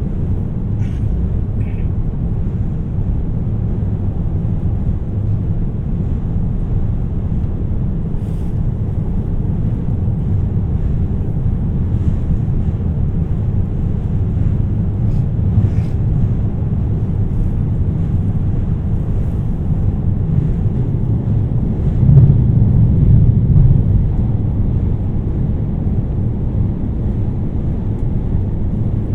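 Running noise of a 2700 series diesel express train heard from on board: a steady low rumble, swelling briefly about two-thirds of the way through.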